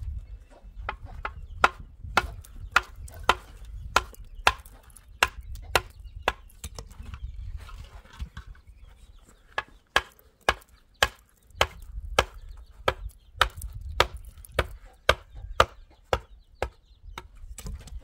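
A steel hand tool striking a hollow concrete block, shaping it: a run of sharp knocks about two a second, a pause of about three seconds midway, then a second run of knocks.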